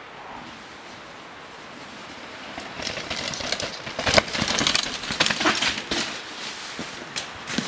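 Downhill mountain bike passing close over a rocky trail: a rising clatter of tyres on rock and dirt with chain and frame rattle, a sharp knock just after four seconds in as it lands, and another short knock near the end. Before it arrives there is only a steady hiss.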